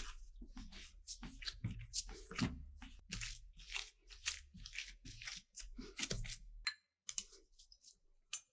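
Soft, sticky dough being kneaded by hand: quick, irregular tearing and squishing strokes, about three a second, that thin out to a few light ticks near the end.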